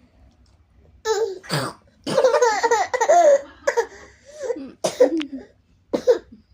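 A baby laughing hard in bursts and breaking into coughs between the laughs, the laughing so hard it sets off the coughing.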